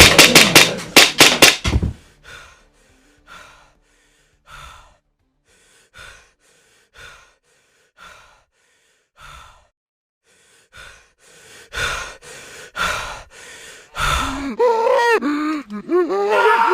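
Gas blowback airsoft pistol firing a quick string of sharp shots, about four a second, then fainter single shots roughly a second apart. Near the end come swooping pitched tones that lead into music.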